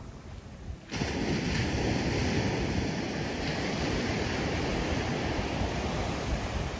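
Surf washing onto a sandy beach, with wind buffeting the microphone. The noise jumps up sharply about a second in and then stays steady.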